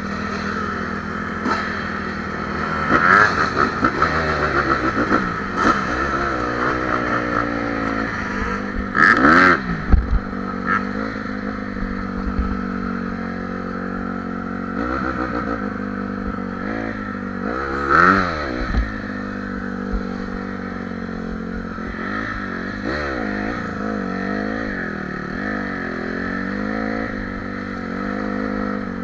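Honda CRF150R dirt bike's single-cylinder four-stroke engine riding along a gravel trail, its pitch rising and falling with the throttle, with the loudest revs about three, nine and eighteen seconds in.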